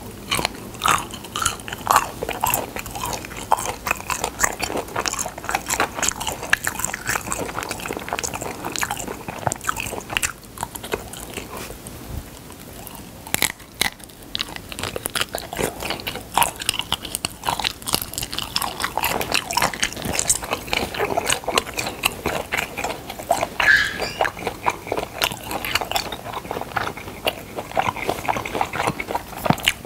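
Close-miked mouth sounds of a person biting and chewing raw spoon worm (gaebul): rapid, irregular wet clicks and chews, easing off briefly about ten seconds in.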